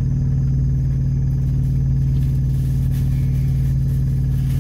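Semi truck's diesel engine idling, a steady low drone.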